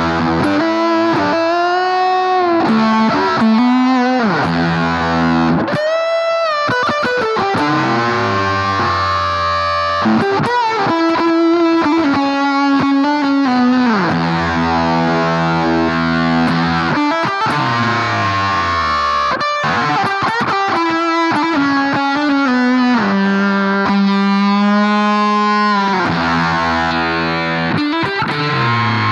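Electric guitar played through a BOSS GT-1000 amp model and Two Notes Cab M cabinet simulation, with a little drive. Sustained chords and held notes, with notes that bend and slide in pitch.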